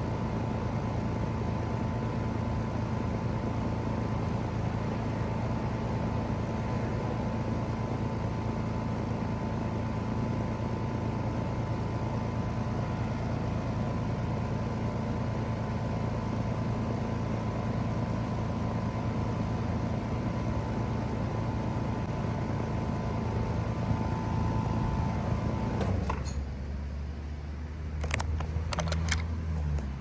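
Trane XR14 3-ton heat pump outdoor unit running in cooling mode: the Alliance scroll compressor and condenser fan hum steadily with a faint whine. Near the end it shuts down abruptly, leaving a lower hum, and a few sharp clicks follow.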